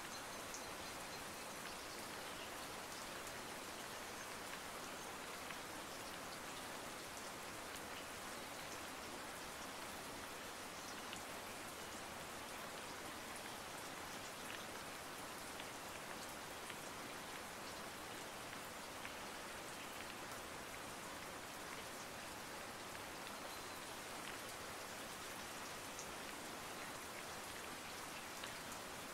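Steady rain sound: an even hiss with faint scattered ticks, unchanging throughout.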